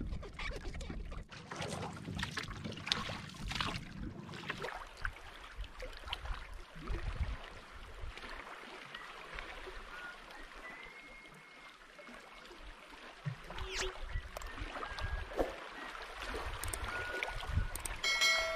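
Sea water lapping and splashing around a small outrigger boat, with wind rumbling on the microphone. About four and a half seconds in it changes to softer, quieter waves washing among shore rocks.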